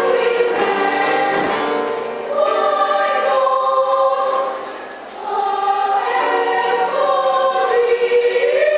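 Children's choir singing in held chords, with a brief drop in loudness about five seconds in, then rising into a long sustained chord near the end.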